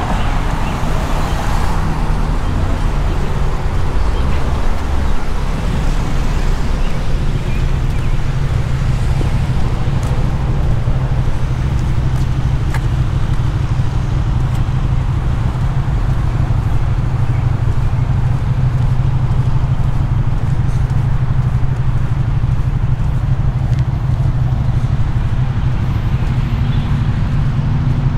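Steady low rumble of road traffic and engines, with a constant drone underneath.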